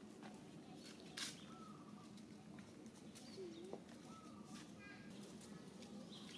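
Faint outdoor ambience: a few short, soft chirping calls at intervals, with an occasional click or rustle, over a low steady background hum.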